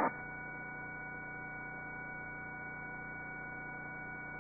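Steady electrical hum with several faint, constant whining tones on the helicopter's intercom audio feed, between transmissions.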